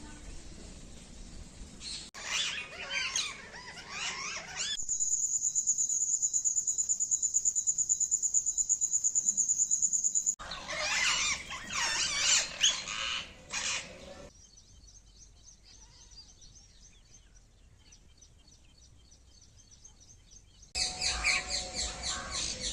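Bird chirping in several short segments with abrupt cuts between them, and a steady, rapid, high-pitched pulsing trill of about five seconds in the middle, then a fainter fast ticking trill.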